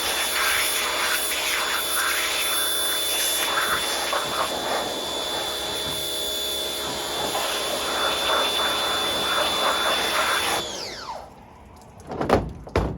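A power tool's electric motor running with a steady high whine and scratchy noise. It is switched off about eleven seconds in and spins down, followed by a couple of knocks.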